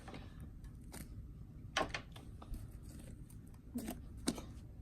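Small objects being handled and taken out: a few light clicks and taps, spaced irregularly, over a low background hum.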